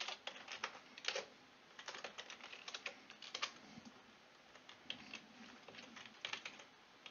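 Faint typing on a computer keyboard: irregular key clicks in short runs, with brief pauses between them.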